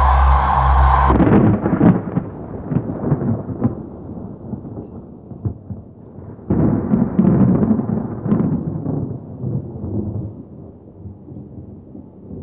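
Music breaks off about a second in and gives way to rolling thunder. It is a low rumble with crackles that swells twice and fades away.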